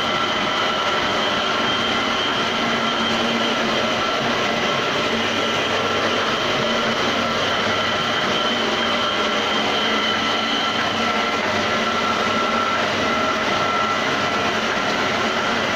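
Homemade tofu-straining machine running steadily: its electric motor and straining drum give an even mechanical noise with a steady whine.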